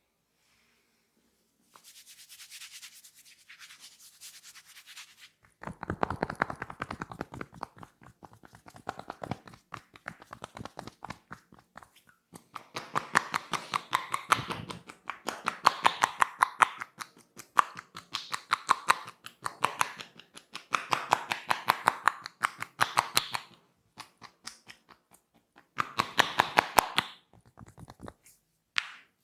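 Fast rhythmic hand tapping and slapping of a head massage, coming in runs several seconds long. Soft rubbing precedes it near the start.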